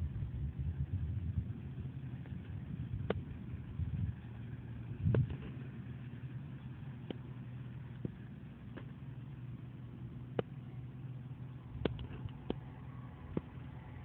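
Farm harvest machine's engine running steadily with a low hum, with several sharp clicks or knocks scattered through it.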